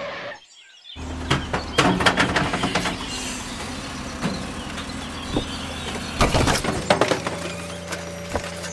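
Toy excavator's bucket breaking down a miniature brick wall: clusters of clattering and crunching as small bricks break and tumble, over a steady low engine hum. A brief drop-out comes just before the clatter starts.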